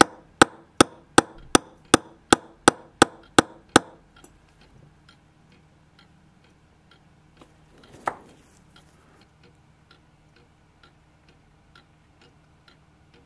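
A clock ticking steadily at about two and a half ticks a second, sharp and loud for the first four seconds, then faint. About eight seconds in there is a single louder knock.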